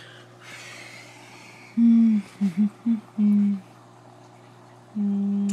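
A man humming a few short notes to himself: a brief hum, three quick clipped ones and a longer held one, then another held hum near the end. A low steady hum runs underneath.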